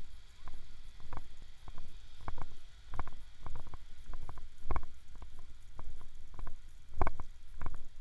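Footsteps on a concrete walkway at an easy walking pace, a step about every half second or so, over a steady low wind rumble on the microphone.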